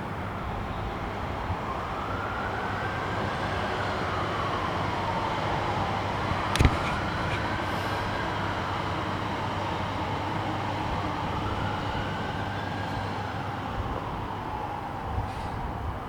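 Busy city street traffic noise with an emergency vehicle siren in a slow wail, rising and falling about once every four to five seconds. A single sharp knock sounds about six and a half seconds in.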